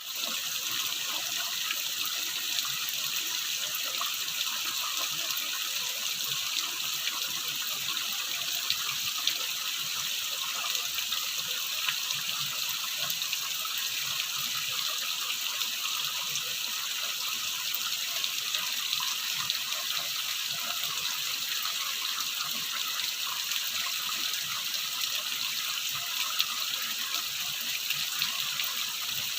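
Clear water running in a steady, unbroken stream, a bright, hissy splashing flow.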